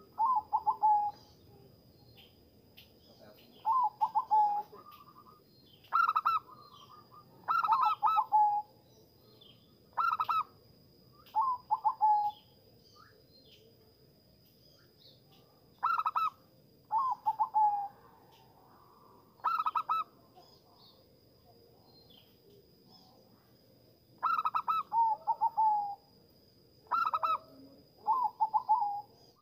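Zebra dove (perkutut) cooing: about a dozen short phrases of quick, rattling notes, each sliding down in pitch, coming in clusters with pauses of several seconds between. A faint steady high tone runs underneath.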